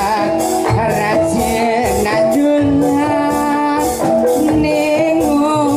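Live gamelan music for a jathilan dance: a singer's long held, wavering notes over hanging gongs and kendang drum, with percussion strokes about twice a second.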